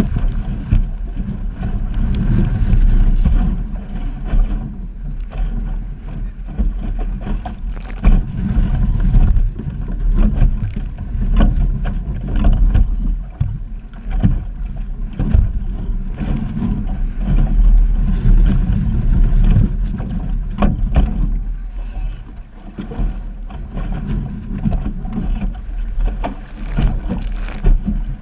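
Wind buffeting the microphone on an Optimist-type sailing dinghy as it sails through chop, with water rushing past the hull and frequent short slaps and knocks as it meets the waves.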